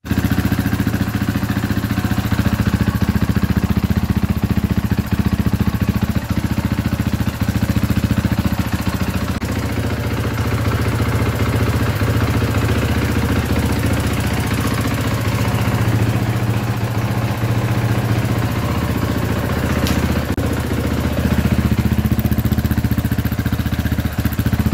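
Supermoto motorcycle engine idling steadily, with even firing pulses.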